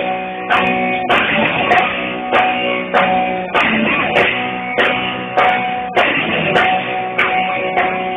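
Live rock band playing: electric guitar chords struck in a steady rhythm over bass and drums.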